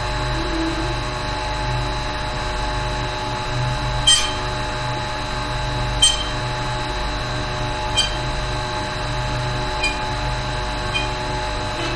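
Steady hum of running machinery in a ship's engine room, with a sharp metallic clink about every two seconds as the handwheel of the port side sea chest valve is turned.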